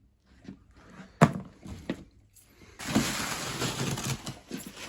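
Handling noise from unpacking a box: a sharp knock about a second in, a lighter knock, then a second or so of rustling and scraping packaging.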